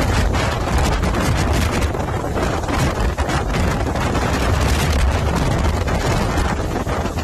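Hurricane wind blowing hard and gusting against the microphone: a heavy low buffeting rumble under a constant rushing hiss.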